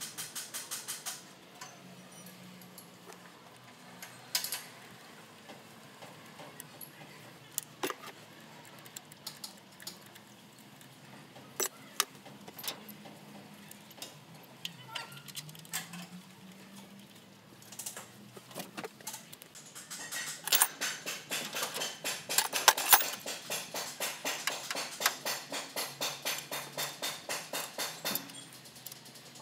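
Ratchet wrench clicking on a bolt in the engine's belt and pulley area, in a brief run at the start and a long, even run in the last third, with scattered clinks of metal hand tools between.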